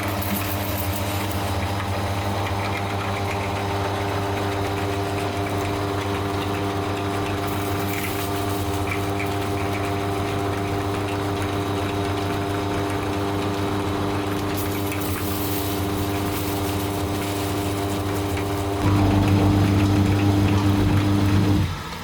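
Electric meat grinder's motor running with a steady hum. About nineteen seconds in it gets louder for a few seconds, then drops off sharply near the end.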